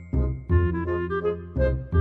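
Background music: a pitched melody over a low thumping beat.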